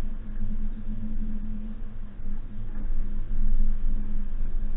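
Suzuki Jimny's engine running at steady revs, a low, even hum over a rumble, while the 4x4 drives along.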